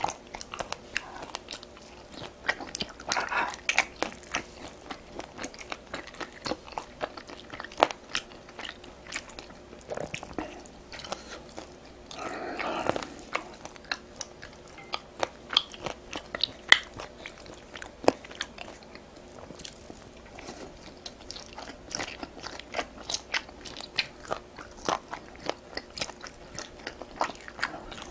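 A person eating close to the microphone: steady chewing and biting with many sharp, crisp clicks and smacks, and a couple of longer breathy sounds about three seconds in and near the middle.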